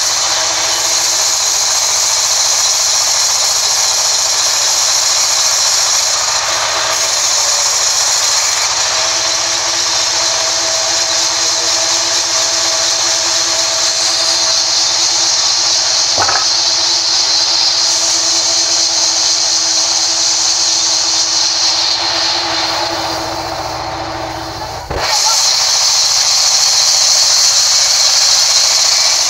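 Sawmill band saw running and cutting lengthwise through a rain tree log, a steady loud high hiss of the blade in the wood. Near the end the sound thins out for a few seconds, then there is a knock and the full cutting sound returns.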